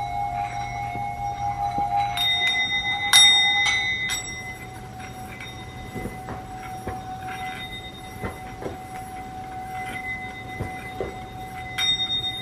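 Tibetan singing bowls ringing with a long, wavering tone. A bowl is struck again about two and three seconds in, the second strike the loudest, and the tone carries on more softly before another strike near the end.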